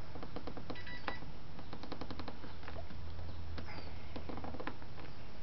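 A knife sawing through a rubber intake hose: several short runs of rapid clicking scrapes, over a steady low hum.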